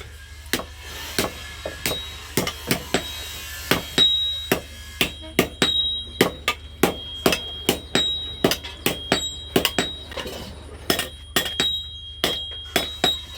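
Steady hand-hammer blows on metal, about two to three a second, with a high metallic ring after many strikes from about four seconds in: a blacksmith making a hole through a digger part.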